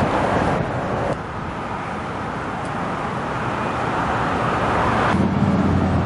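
Road traffic going by outdoors, a steady rush of passing vehicles. A steady low hum joins about five seconds in.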